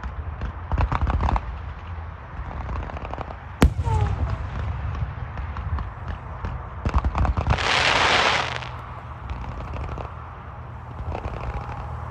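Consumer fireworks going off: clusters of crackling pops, a single sharp bang about three and a half seconds in, and a loud hiss lasting about a second near eight seconds in.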